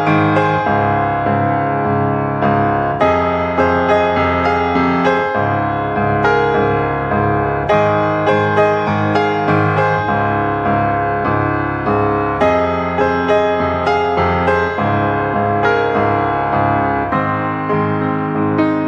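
Background piano music: a keyboard playing a gentle tune with struck chords and notes throughout.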